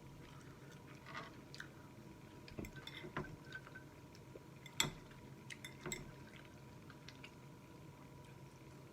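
Close-miked eating of spaghetti: wet chewing and mouth smacks, with scattered small clicks. The sharpest click comes about five seconds in.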